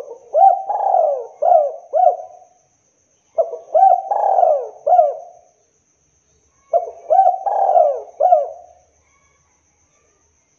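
Spotted dove cooing: three phrases about three seconds apart, each a quick run of four or so coos.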